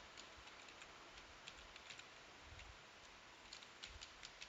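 Faint computer keyboard typing: scattered light key clicks, coming in a quicker run near the end, over near-silent room tone.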